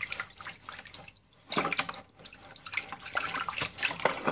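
Water sloshing and splashing in a filled sink as a hand swishes a smartphone back and forth under the surface, in irregular bursts with brief pauses.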